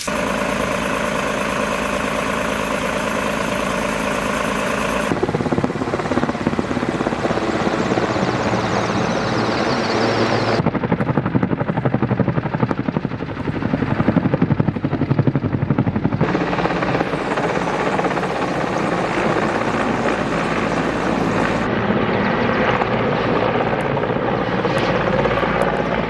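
Firefighting helicopter's rotor blades chopping fast over its turbine, loud and steady. The sound changes abruptly every five or six seconds where the shots are cut together.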